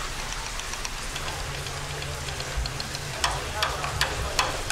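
Steady hiss like rain or running water, with a quick run of sharp clicks starting about three seconds in.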